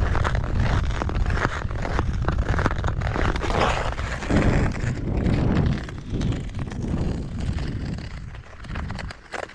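Ice skate blades scraping and gliding on lake ice in repeated strokes, with wind rumbling on the microphone; it quietens near the end.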